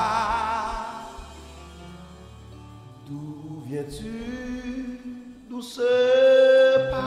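A man singing a slow gospel worship line into a microphone, holding long notes with vibrato, loud at the start and loudest in a held note near the end, over a soft, low instrumental backing.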